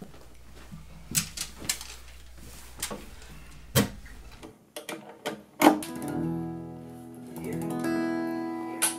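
Clicks and knocks of acoustic guitars being handled as the players settle in. About halfway through, acoustic guitars strum a chord that is left ringing, with a second swell of strumming near the end.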